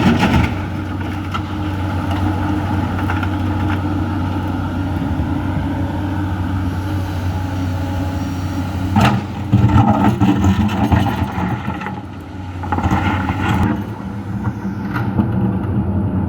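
Komatsu excavator's diesel engine running steadily, swelling louder twice as the machine works: once about halfway through, starting with a sharp knock, and again a few seconds later.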